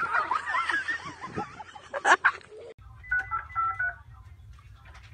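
Children shouting and shrieking, with one loud yelp about two seconds in. An abrupt cut then gives a quick run of touch-tone phone keypad beeps over a low hum.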